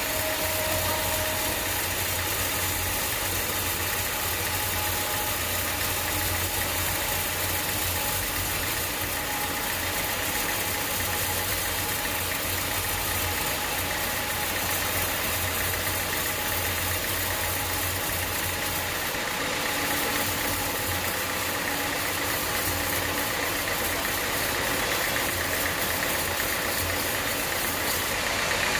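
Sawmill machinery running steadily. A low hum drops away about two-thirds of the way through.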